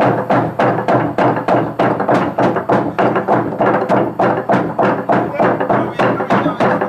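Traditional Sepik wooden drums beaten in a fast, even rhythm, about four to five strikes a second, with a steady held tone under the beat.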